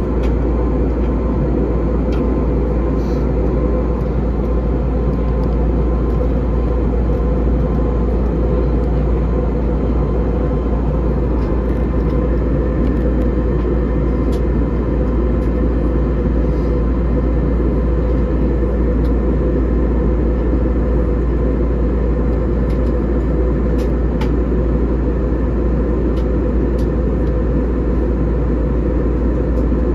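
Airbus A320 cabin noise in flight, heard from inside at a window seat: a steady, deep rumble of engines and rushing air.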